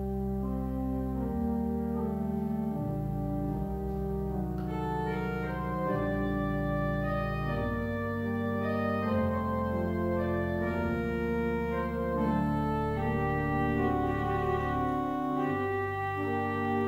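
Church organ playing slow, held chords that change every second or two, with higher notes joining about five seconds in.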